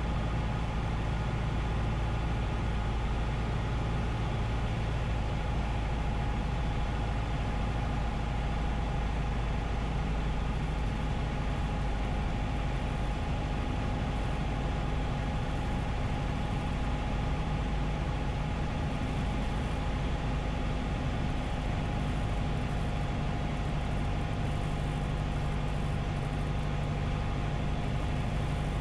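Piper PA-28 light aircraft's piston engine and propeller droning steadily on final approach, heard inside the cockpit.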